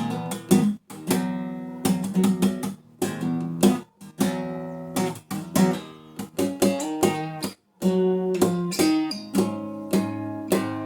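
Steel-string folk acoustic guitar with new strings played fingerstyle: plucked chords and melody notes ringing out bright, broken off by three very short pauses.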